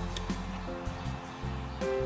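Background music: held chords changing every half second or so over a steady low bass.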